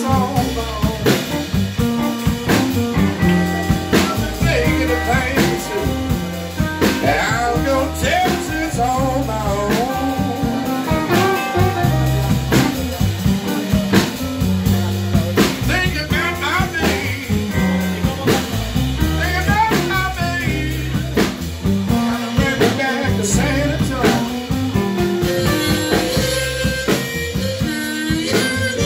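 Live blues band playing an instrumental passage: electric guitars over bass and a drum kit keeping a steady beat, with bending lead lines. A harmonica comes in near the end.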